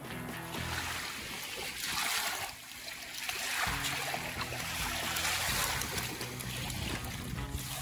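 Small lake waves splashing and lapping at the shoreline, swelling a couple of times, under background music with sustained chords.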